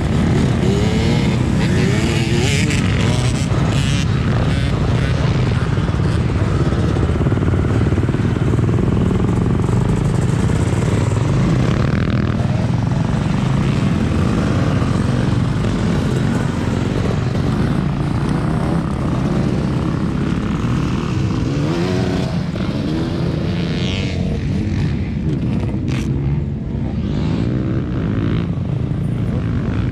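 Motocross bike engines running on a track, revving up and down over a loud, continuous drone.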